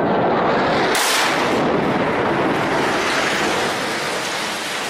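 Airstrike explosion: a sharp blast about a second in, inside dense, loud noise that carries on and slowly fades.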